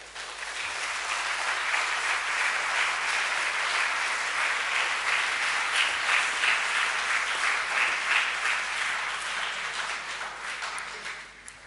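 Audience applauding after a lecture, a dense steady clapping that dies away near the end.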